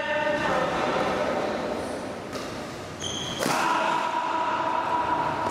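Badminton rally in an echoing sports hall: two sharp racket strikes on the shuttlecock about a second apart, the second the louder. After it a steady pitched tone holds for the last two seconds.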